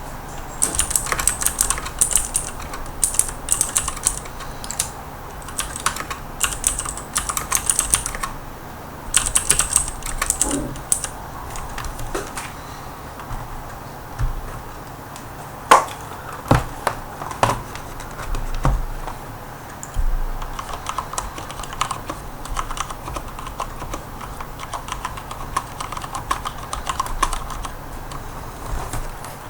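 Typing on a mechanical keyboard with Cherry MX switches: quick runs of sharp, bright keystrokes, then a stretch of only a few separate key strikes, then steady typing again that sounds duller, as if on a different switch type.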